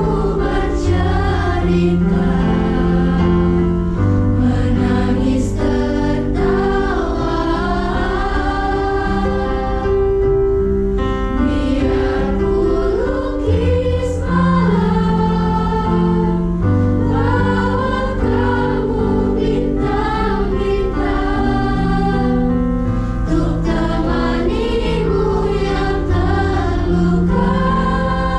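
Youth choir singing a pop song in several voice parts, accompanied by an electric keyboard and a guitar, with sustained low bass notes under the voices.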